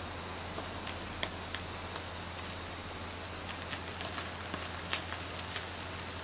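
Thin slices of beef sizzling on a wire mesh grill over charcoal: a steady hiss broken by scattered sharp pops and crackles.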